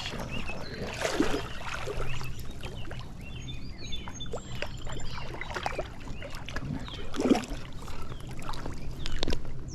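Water splashing in irregular bursts as a hooked smallmouth bass thrashes at the creek's surface while being brought in.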